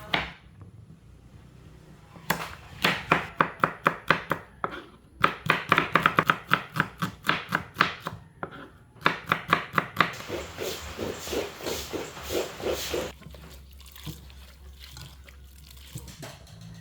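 Knife chopping vegetables on a cutting board in quick strokes, several a second, in three runs, the last one faster and denser.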